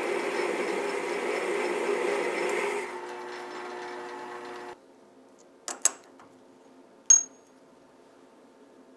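Benchtop lathe turning a steel bar with a high-speed-steel tool bit ground without a rake face: a loud, rough cutting noise for about three seconds. Then only the lathe running without cutting, which cuts off suddenly. After that come a few sharp metallic clicks, the last with a brief ringing, as a tool bit is handled in the tool post.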